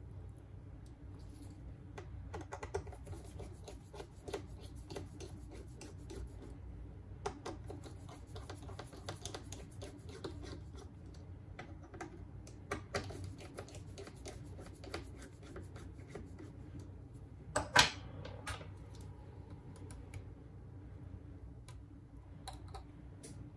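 Small repair tools clicking, tapping and scraping against the opened smartphone's metal and plastic parts in an irregular run, with one sharper clack a little after three quarters of the way through.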